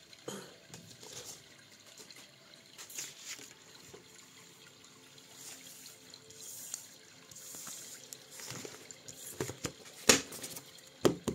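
Tarot cards being handled and shuffled: soft papery swishes and small clicks of card stock, with a sharper snap about ten seconds in and another near the end.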